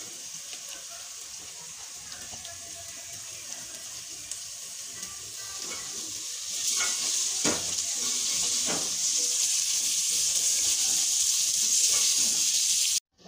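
Julienned carrots and green capsicum sizzling in hot oil in a metal pot as they are stir-fried, with a metal ladle scraping now and then. The sizzle grows louder about six and a half seconds in and cuts off just before the end.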